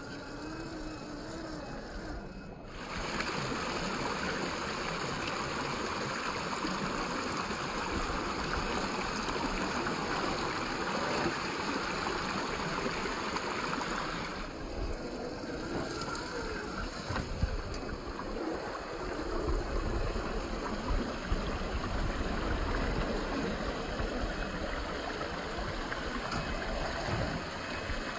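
Shallow stream water rushing over rocks, with the faint whine of RC rock crawlers' electric motors and gears as they climb.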